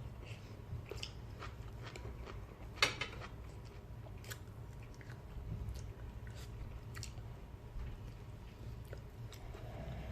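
Close-up chewing and biting of seafood, with scattered small wet clicks and crunches and one sharper click about three seconds in, over a low steady hum.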